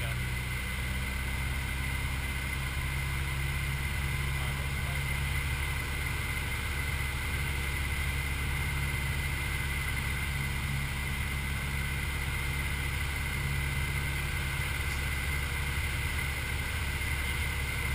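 A light piston airplane's engine and propeller droning steadily, heard inside the cockpit, with a thin steady high whine over the drone.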